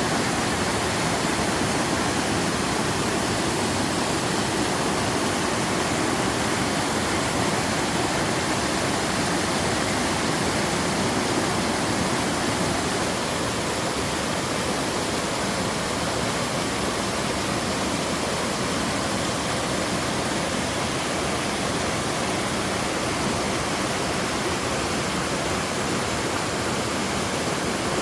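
A mountain-stream waterfall cascading down several tiers, making a steady, full rush of falling water. It gets slightly quieter about halfway through.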